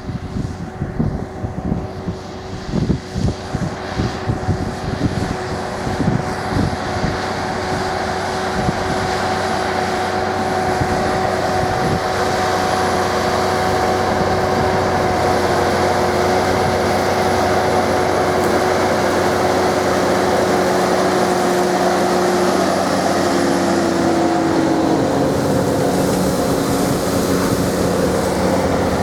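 Case tractor engines running steadily while ploughing, a continuous drone that grows louder over the first ten seconds or so and then holds, with a slight drop in pitch a little past two-thirds through. Wind buffets the microphone for the first several seconds.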